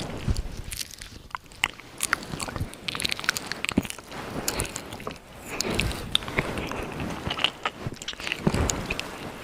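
Close-miked ASMR mouth sounds: irregular wet clicks and smacks of the lips and tongue, with some softer breathy swells between them.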